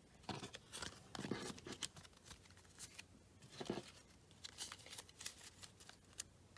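Faint rustling and light clicks of trading cards and foil pack wrappers being handled, scattered soft taps and crinkles.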